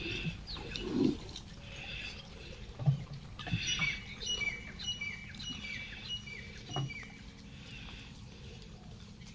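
Cardboard boxes being handled and set down on the ground, giving a few dull knocks and scrapes, the loudest about a second and about three seconds in. In the middle, a bird calls a quick run of short falling notes, about three a second.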